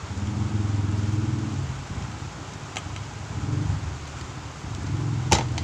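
A low, uneven hum that swells and fades, with one sharp clack about five seconds in as an aluminium cake pan and a ceramic plate knock together while a steamed cake is turned out.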